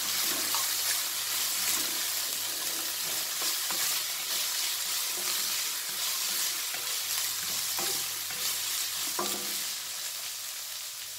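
Chopped onions, green peas and green chillies sizzling in hot oil in a stainless steel kadai, stirred with a wooden spatula that scrapes and knocks against the pan now and then.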